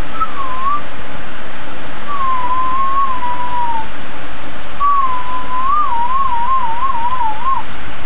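Pit bull whining in three high, drawn-out whines, the last one longest and wavering up and down, over a steady hiss.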